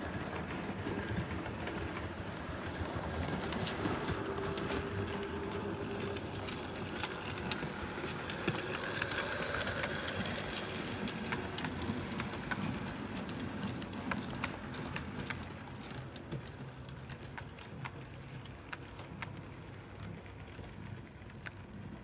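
Model railway train running past close by: a steady rolling rumble with quick clicks of the wheels over the rail joints, growing louder toward the middle and fading near the end.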